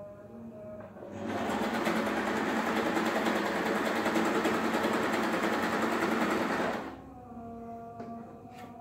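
Janome 3522 sewing machine running and stitching through fabric for about six seconds: a fast, even mechanical rattle that starts about a second in and stops suddenly. A couple of sharp clicks follow near the end.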